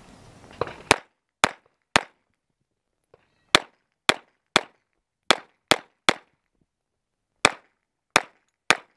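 Semi-automatic pistol fired rapidly: about a dozen sharp shots, mostly in quick groups of three about half a second apart, with short pauses between groups as the shooter moves to the next targets.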